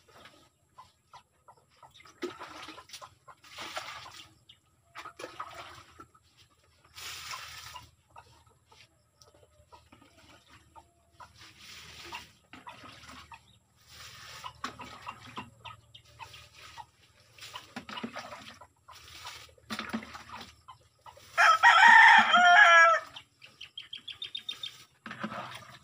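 A rooster crows once, loud and about a second and a half long, near the end. Short clucks from chickens come at intervals before it.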